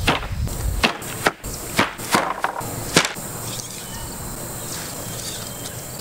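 Wooden shipping pallets knocking and clattering as they are dropped and dragged on the ground: about seven sharp knocks in the first three seconds, then a steady faint outdoor hiss.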